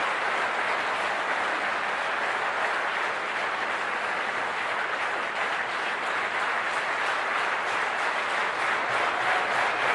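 A large audience applauding steadily, a dense even clapping that swells a little near the end.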